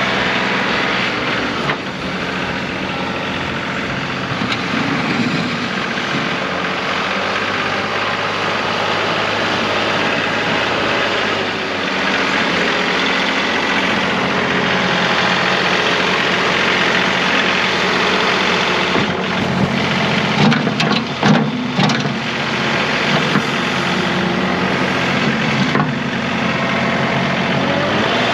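John Deere 2038R compact tractor's three-cylinder diesel engine running steadily, with a few brief clatters a little past the middle.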